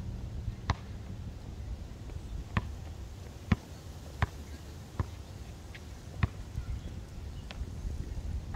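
Basketball bouncing on a concrete court: a few single bounces, then a run of dribbles about every three-quarters of a second, each a short sharp knock, over a low rumble.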